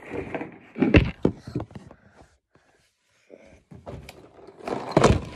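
Handling knocks and clatter as a phone is set down and propped against a box on a table, loudest about a second in and again near the end, with a short quiet spell between.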